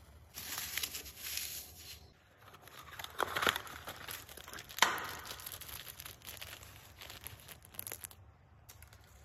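Cardboard box and paper packet of black snake firework tablets being handled and opened: irregular crinkling and tearing of the packaging, with one sharper click about five seconds in.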